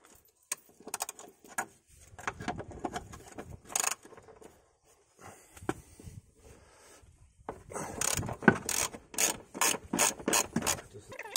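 Ratchet wrench with a 16 mm socket clicking in several quick runs as its handle is swung back and forth, undoing the two bolts at the top of a rear shock absorber. The clicking is busiest near the end.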